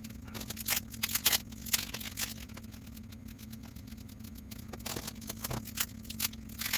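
Baseball trading cards being handled and sorted: an irregular run of short, sharp clicks and snaps of card stock.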